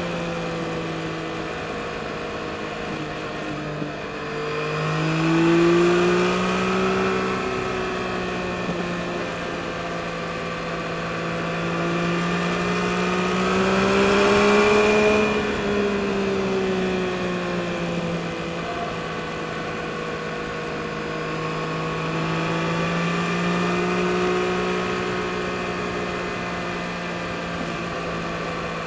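2022 Yamaha MT-09 SP's 890 cc inline three-cylinder engine running under way, its pitch rising with the throttle about five seconds in and again around fourteen seconds, easing back between and after.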